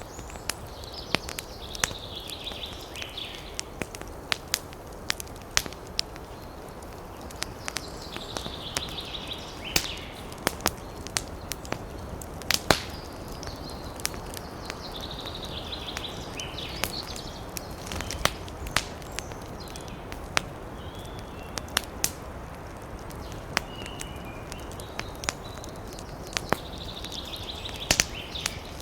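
Campfire crackling: burning wood gives frequent sharp pops over a steady low hiss. A bird sings a short falling phrase every few seconds.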